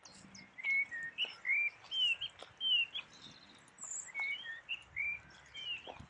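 A songbird singing two phrases of short, clear slurred whistles, with fainter high chirps from other birds around it.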